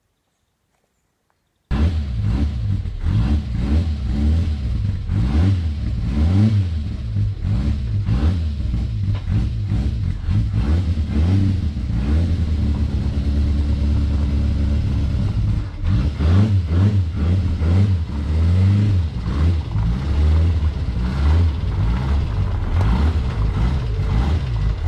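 Reliant 750cc engine of a small open sports racer, revving hard and rising and falling in pitch as the car accelerates and slows. It starts abruptly about two seconds in.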